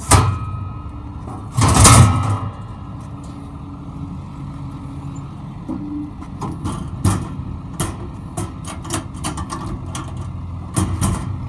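Metal knocks and a clatter from a steel utility-bed compartment shelf, then the compartment door swung shut with sharp latch clicks. Under them a 2009 Ford F-350's 6.4-litre Power Stroke V8 turbo diesel idles steadily.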